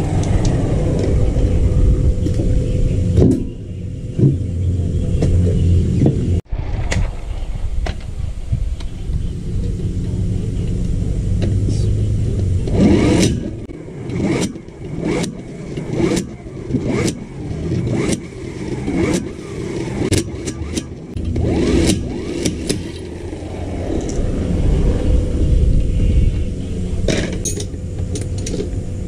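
Electric impact wrench running in bursts, rattling car wheel nuts and then the axle hub nut loose, with many sharp metallic strikes in the second half.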